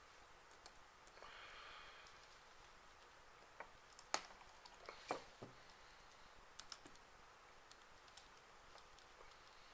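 Faint scattered clicks and taps of small metal and plastic parts and hand tools being handled while assembling an RC helicopter rotor head, the two loudest about four and five seconds in, over near silence.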